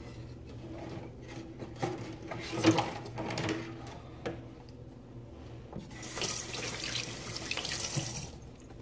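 Water running for about two and a half seconds, starting abruptly past the middle and cutting off near the end, after a few scattered knocks and handling sounds.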